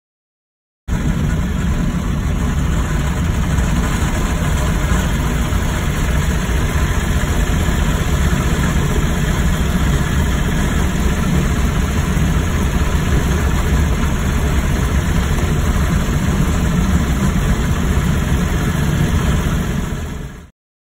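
Engines of a Woodings rail motor car and the gasoline rail mower it is pushing through tall grass, running steadily. The sound starts abruptly about a second in and cuts off just before the end.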